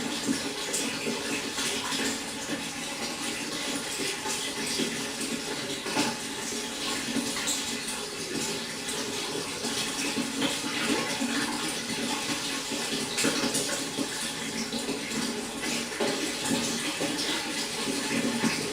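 Pond water trickling and splashing steadily, with many small splashes in a continuous stream, like water falling into the pond.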